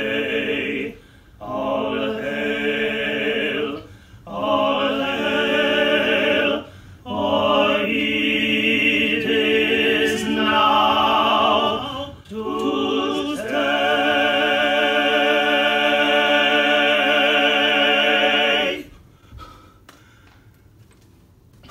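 Operatic tenor voice singing in sustained, vibrato-laden phrases with short breaths between them. The last note is held for about five seconds before the voice stops near the end.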